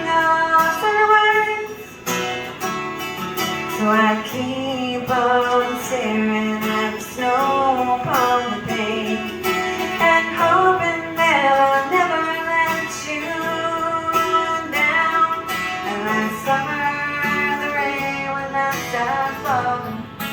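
Live song played on a strummed acoustic guitar, with a woman's voice singing a melody over it.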